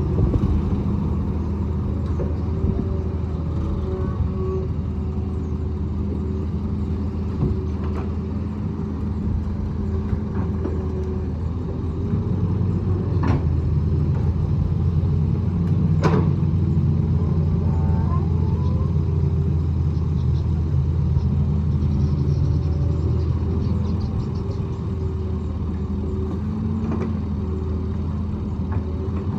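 Hitachi EX200 hydraulic excavator's diesel engine running steadily under load. Two sharp knocks come a little after the middle, about three seconds apart.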